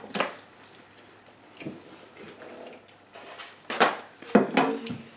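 Dishes and cutlery clinking and knocking at a meal table: a few scattered clicks, the loudest cluster near the end.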